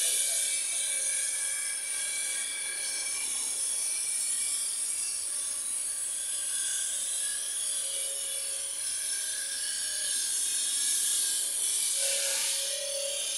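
Steady high-pitched whine and hiss of a stone-cutting saw running in a marble factory, holding several thin tones without a break.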